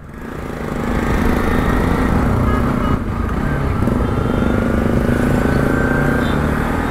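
Motorcycle engine running steadily while riding, with wind and road noise over it; it swells in over the first second and then holds steady.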